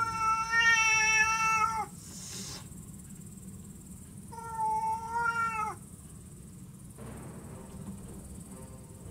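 A cat yowling: two long, drawn-out caterwauls, each falling in pitch at its end, about two seconds apart, with a brief hiss between them — the aggressive, territorial cry of a cat confronting a stray. Faint music starts near the end.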